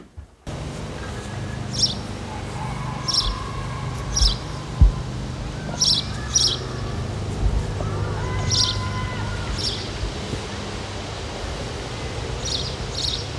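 Birds chirping in short, high calls every second or so, over a steady low outdoor hum.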